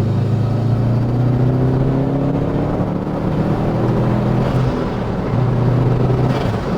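2005 Subaru WRX STI's turbocharged flat-four engine pulling under acceleration, its note rising steadily. About four and a half seconds in the note breaks and drops, as at a gear change, then carries on.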